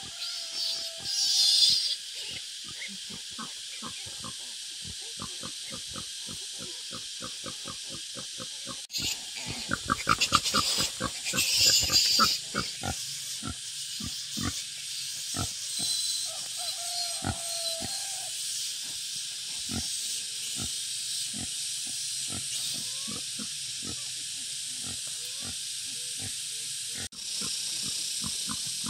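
Wild boar grunting in a long run of short grunts, a few a second. The grunts are thickest and loudest about ten seconds in, over a steady high hiss.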